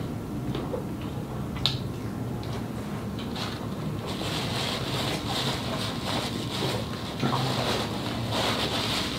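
Paper napkin rustling and crinkling as hands wipe on it, starting about four seconds in, with one sharp click shortly before.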